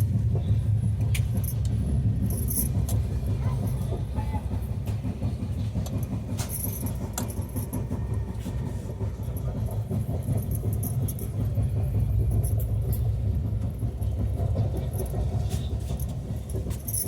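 Steady low rumble of a moving train heard inside the passenger coach, with scattered light rattles and clinks.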